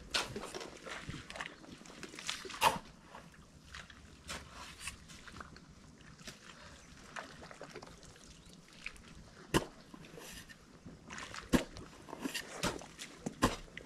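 Irregular wet squelches, sloshes and scrapes of mud and water as workers wade and dig in a waterlogged pond bed, with a few sharper knocks scattered through.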